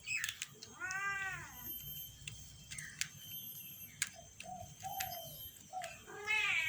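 A cat meowing twice: a drawn-out meow about a second in that rises and then falls in pitch, and a second one near the end. Short faint chirping notes and clicks come in between.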